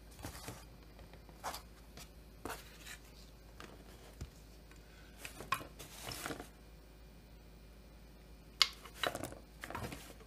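Workbench handling noises as a chainsaw engine crankcase with its cylinder is turned over and moved on a rubber mat: scattered light knocks, rubs and small metal clicks from parts and a hand tool. The sharpest click comes near the end.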